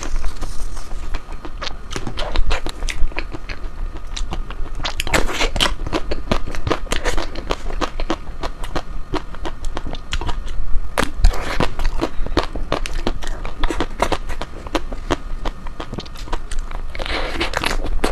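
Close-up mouth sounds of a person biting and chewing ice cream: a steady run of many sharp wet clicks and crackles, thickening into denser bursts three times.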